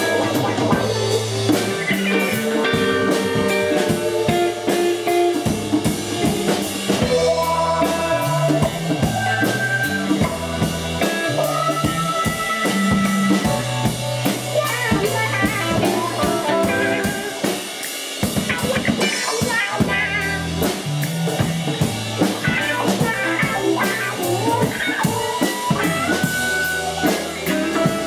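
A rock band playing live with no vocals: a drum kit with kick, snare and rimshots drives under held bass notes and guitar lines. The bass drops out for a moment about two-thirds of the way through.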